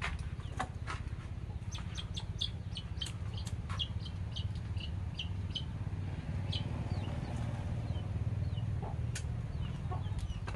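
Birds chirping in quick short notes over a steady low rumble, with a few sharp crackles and clicks as a wood fire is lit in a clay stove.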